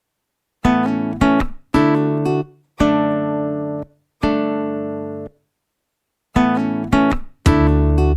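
Background music: guitar chords struck one at a time, each left to ring and then cut off, with short silent gaps between them, becoming fuller and louder near the end.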